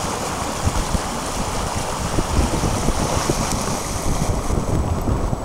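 Wind gusting on the microphone in irregular low thumps, over the steady hiss of seawater flowing fast in a strong current.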